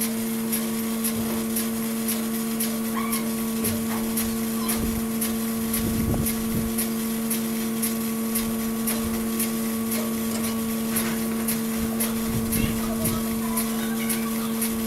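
Steady electric machine hum with a regular light ticking about two to three times a second and a few dull knocks.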